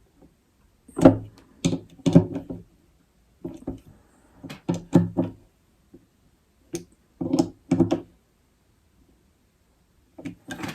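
Irregular knocks and clunks of hard plastic parts on a Yakattack CellBlok as it is handled and its screws are tightened with a Phillips screwdriver. The knocks are short and separate, with quiet gaps between them.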